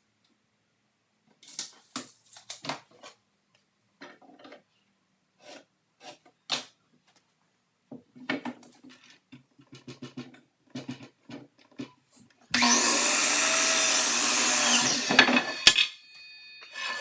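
Wooden knocks and clicks as 2x4 lumber is handled. About two-thirds of the way through, an electric saw runs loudly for about three seconds, cutting a 2x4 stud to length, then stops.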